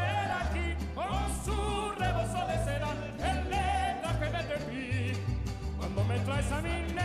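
Background music: a warbling lead melody over a bass line.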